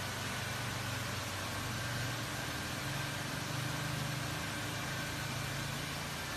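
Steady low mechanical hum under an even, constant hiss.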